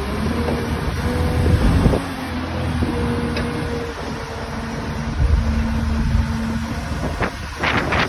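Diesel engine of a farm loader tractor running steadily at idle, a low hum with wind buffeting the microphone. A few sharp knocks near the end.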